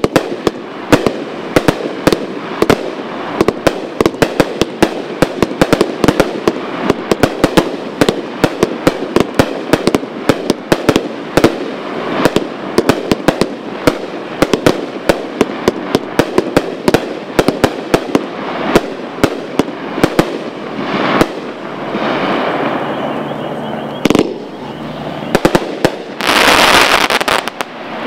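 A 1000-gram Mayhem consumer firework cake firing shot after shot: a rapid run of sharp bangs for about twenty seconds, then crackling, with a loud dense burst of crackle near the end.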